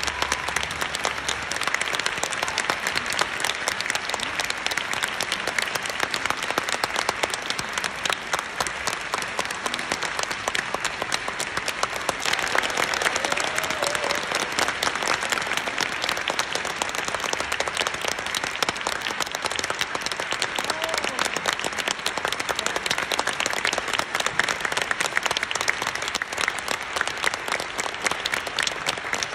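Large theatre audience applauding, dense and steady, with no let-up.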